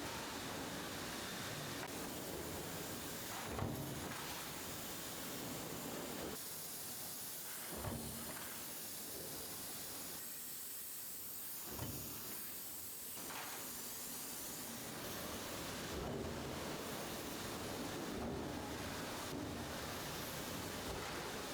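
Factory noise: a steady hiss with three short thumps, the first the loudest, a few seconds apart.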